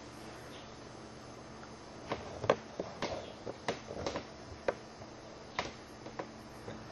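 Light clicks and taps of reloading tools and parts being handled on a bench: quiet for the first two seconds, then about ten scattered sharp clicks over the rest.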